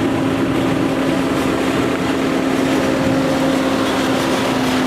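Emergency vehicles running as they pull out, a dense engine noise with a steady low drone held throughout.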